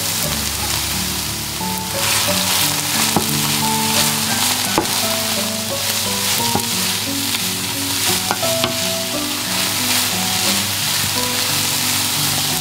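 Sliced onions and mushrooms sizzling as they fry in olive oil in a nonstick pan, stirred with a wooden spatula that gives a few light clicks against the pan. The sizzle grows louder about two seconds in.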